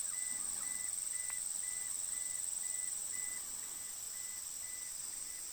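Steady outdoor ambience: an even hiss of a waterfall, under a steady high-pitched drone and a faint short chirp repeating about three times a second.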